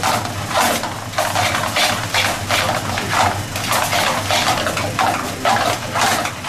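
Pasta being tossed and stirred in an aluminium sauté pan over a high gas flame: metal tongs scrape and clatter against the pan in quick repeated strokes, about three a second, as the pasta sizzles with the little cooking water left in it.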